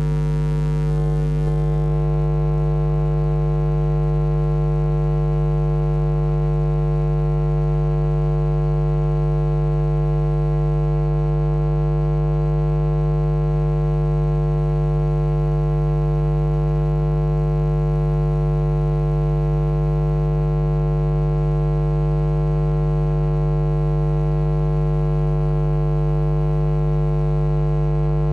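Steady electrical hum: a deep, buzzy drone with many overtones, holding unchanged throughout.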